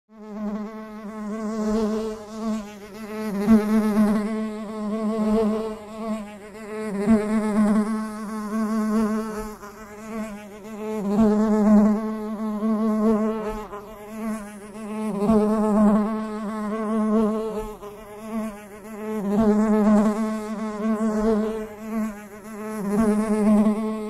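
A bee buzzing in flight: a steady, low-pitched buzz that swells and fades about every four seconds as it circles around the listener.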